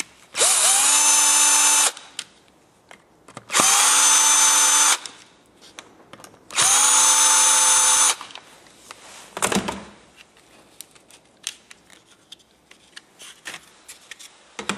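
Cordless drill-driver run in three bursts of about a second and a half each, each spinning up quickly and then holding a steady whine, undoing the fasteners of an alternator's cover. Light clicks and a rattle of parts being handled follow.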